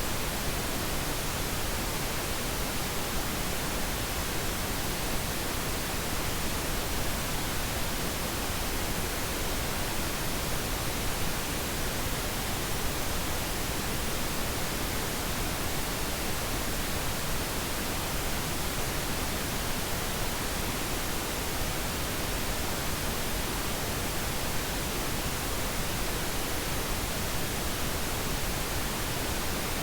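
Steady pink noise, an even hiss spread across all pitches with no changes or events.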